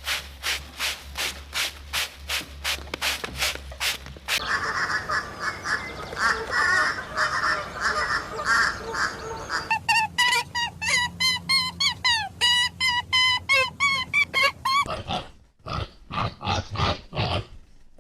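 Poultry sounds, cut together: a run of regular sharp clicks at about three a second, then a dense chatter, then a flock of duck-like birds calling in quick, short, pitched calls.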